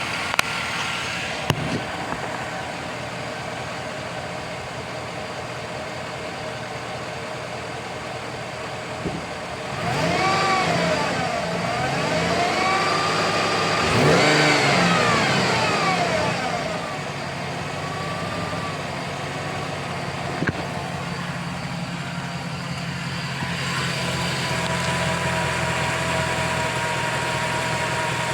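2007 GMC truck's 5.3-litre V8 running with the hood open, with a constant whine from the lower front of the engine. In the middle the engine sound and whine climb and fall in pitch a few times and get louder. The owner suspects the harmonic balancer or the water pump and has ruled out the power steering.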